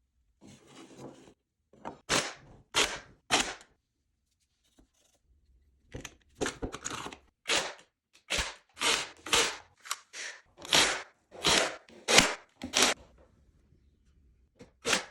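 Electric nail gun firing nails, each shot a sharp snap. There are three shots about two seconds in, then a run of about a dozen shots at roughly two a second, and one more near the end.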